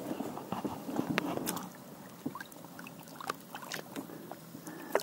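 Faint water sloshing and dripping with a few light scattered clicks, as a small pike is lowered back into the river from an inflatable boat and released.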